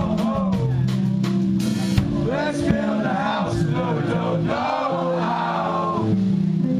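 Live rock band playing: a male voice singing over electric guitar and a drum kit.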